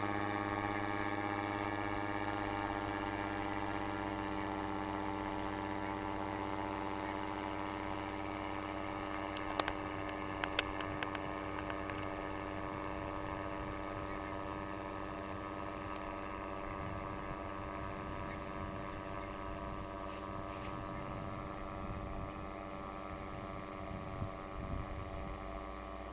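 Paramotor engine heard overhead, a steady droning hum that slowly fades as it moves away. A few sharp clicks about ten seconds in, and low wind rumble in the second half.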